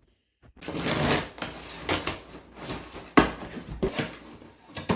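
Handling noise: rustling and rubbing with a few sharp knocks, about three seconds in and again near the end, as things are moved about by hand.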